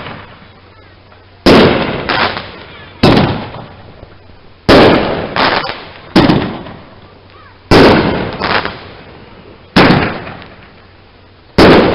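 Consumer aerial fireworks bursting in a finale: a string of about ten loud bangs, one every second or so, some in quick pairs, each trailing off.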